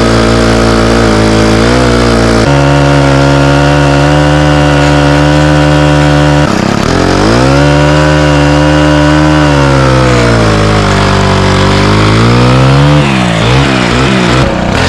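An engine running loudly and steadily. About six seconds in its pitch drops and climbs back up, and near the end it wavers up and down.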